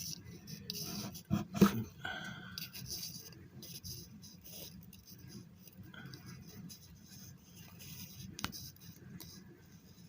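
Handling noises while super glue is run along plastic model tank-track pieces: light scraping and rustling, with a few sharp clicks of parts or the glue bottle being knocked, a pair about a second and a half in and one near the end.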